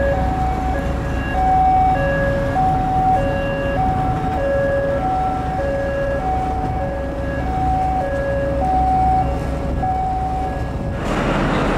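Two-tone hi-lo siren alternating between a higher and a lower note about every half second, over a steady low engine rumble. Near the end the siren stops and a rush of wind and water takes over.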